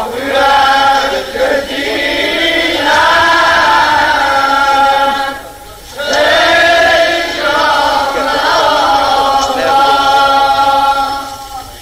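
Male voice singing a Shia mourning elegy (noha) in long, drawn-out melismatic vowels, two held phrases with a short breath about halfway.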